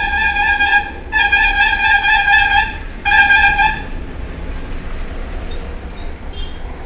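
A loud buzzing, horn-like tone sounding in three blasts, each about one to one and a half seconds long. It stops about four seconds in, leaving a low hum.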